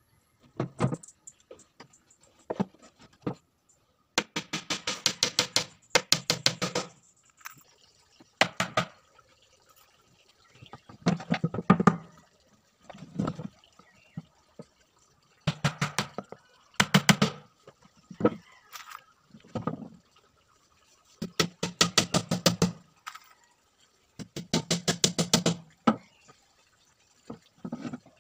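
Hammer tapping nails into the edges of a plywood speaker box. The taps come in fast runs of several a second, each run one to two seconds long, with short pauses between.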